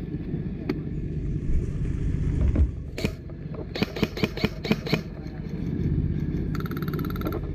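Airsoft guns firing: a quick run of sharp single shots around the middle, then a short full-auto burst near the end, over a low steady rumble.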